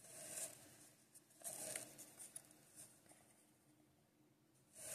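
Faint rustle of thick cardboard baseball cards sliding against each other as a small stack is thumbed through by hand, in a few soft swishes.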